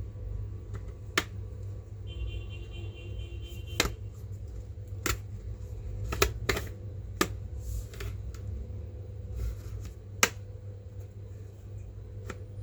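Scattered sharp clicks and taps of tools and plastic parts while a Lenovo ThinkBook 14 G6 laptop is worked on for a RAM upgrade, about seven in all, over a low steady hum.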